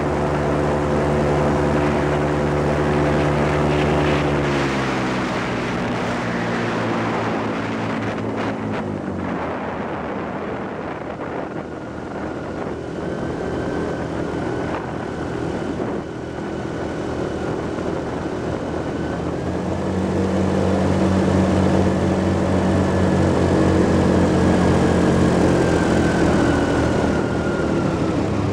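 Airboat's engine and large air propeller running at speed. About five seconds in the engine note drops as the throttle eases off. About twenty seconds in it builds again and grows louder.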